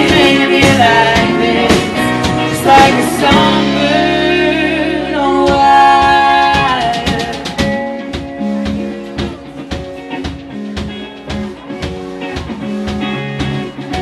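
Live rock band with a female singer holding long, wavering notes over guitars, keyboard and drum kit. After about seven seconds the singing drops out and the music continues more quietly as an instrumental passage of guitar and regular drum hits.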